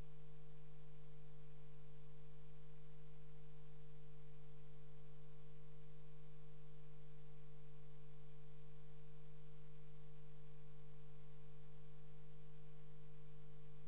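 A steady, unchanging hum made of a few constant tones, with no other sound.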